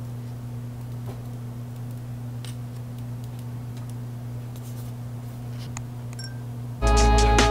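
Steady low electrical hum with a few faint clicks as the clear film is peeled off a phone screen; background music cuts back in near the end.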